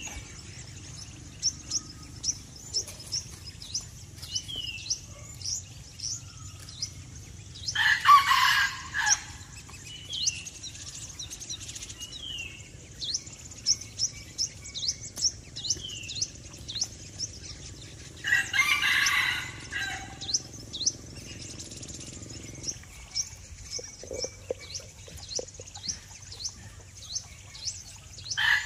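A rooster crowing three times, each crow about a second and a half long and roughly ten seconds apart, over continual quick, high bird chirps.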